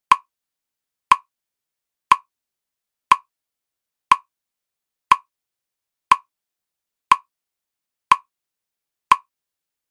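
Metronome clicking steadily at one beat a second (60 beats a minute). Each click is short, sharp and identical, with silence between the clicks.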